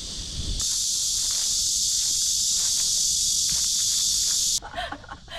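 Cicadas droning in a loud, steady, high-pitched buzz. It comes in sharply about half a second in and cuts off abruptly near the end.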